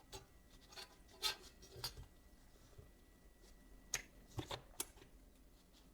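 Faint, scattered clicks and taps of small hard parts being handled, as the phone screen is loaded back into the de-bubbling machine, with a cluster of sharper clicks about four seconds in.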